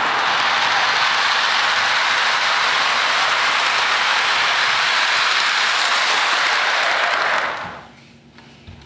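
Lionel toy electric train running on its track, a loud, steady rattling noise of wheels and motor. The noise fades out quickly about seven and a half seconds in as the train stops, with a few faint clicks after.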